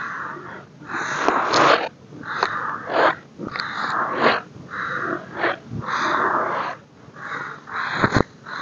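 Baking soda powder squeezed and crushed in bare hands: a crunch repeated about once a second, each squeeze ending in sharp crackles, with a few sharper snaps near the end.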